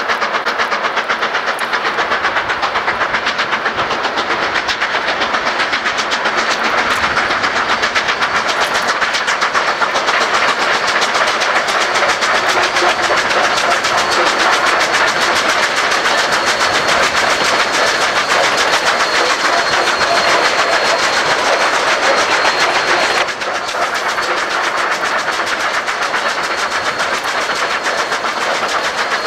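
Steam locomotive running at speed, its exhaust beats coming fast and even over a steady rushing noise. The sound changes abruptly about 23 seconds in.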